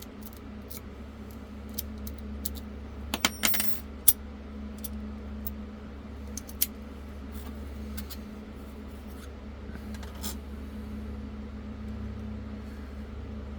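Sparrows lock-pick rake working in a Master Lock padlock: scattered small metal clicks, with a brief bright metallic jingle about three seconds in and a sharp click just after it.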